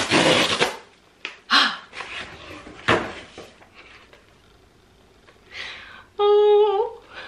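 A package being torn and rustled open in a few short bursts, then a short high-pitched excited squeal through a closed mouth, rising at its end.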